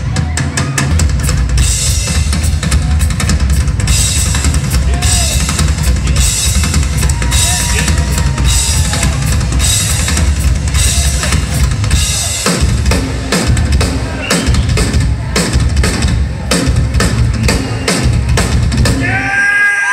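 Rock drum solo on a full drum kit: dense, fast hits on bass drum, toms and snare under washing cymbals. The crowd starts cheering and whooping near the end.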